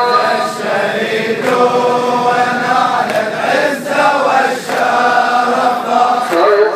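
A large crowd of men chanting together as they march, the voices held on long drawn-out notes.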